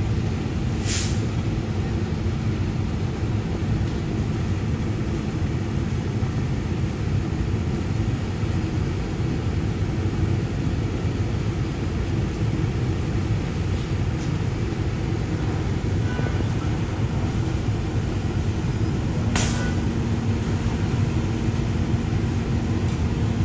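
Fire engine's diesel engine running steadily, a low rumble with a constant hum. Two brief hisses break through, one about a second in and one near the end.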